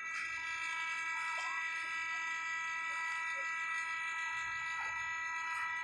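A steady high-pitched machine whine of several tones held level, with a faint low engine rumble swelling briefly about four seconds in.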